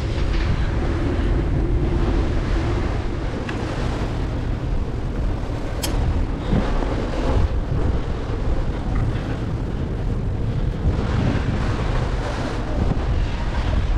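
Wind buffeting the microphone aboard a tall ship at sea, a steady rushing noise heaviest in the low end, with one sharp click about six seconds in.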